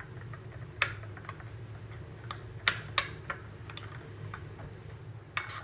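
Metal spoon clinking and tapping against a ceramic bowl while mashing butter into minced garlic: irregular sharp clicks, a few louder ones near the middle.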